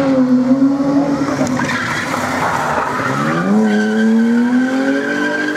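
BMW 3 Series (E36) saloon spinning its rear tyres in a drift, with the tyres squealing over the engine at high revs. The engine pitch climbs about three seconds in.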